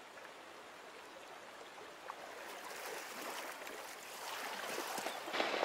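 River water running over the shallows, a steady rush that grows louder about halfway through.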